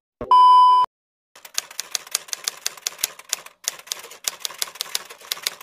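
A short, loud electronic beep, then a typewriter sound effect: rapid keystroke clicks, about five a second, with a brief pause midway.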